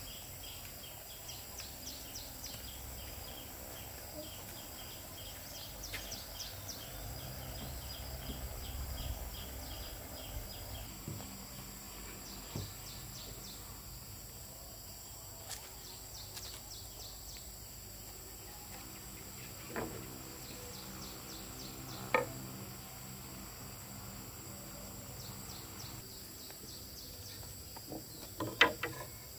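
Insects chirping and trilling steadily in a rural background, with a few sharp knocks, the loudest two near the end.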